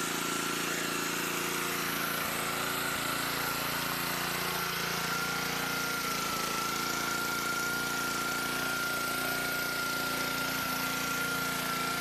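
Pressure washer running steadily: the motor and pump drone with a steady high tone above, and the spray hisses as it rinses polish residue off a car's paint.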